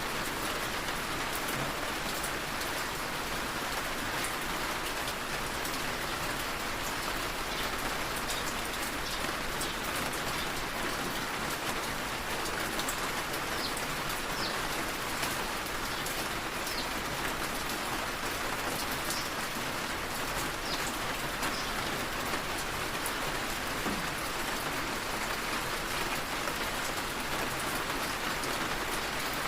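Steady rain falling and tapping on a window, with scattered small drop ticks and no change throughout.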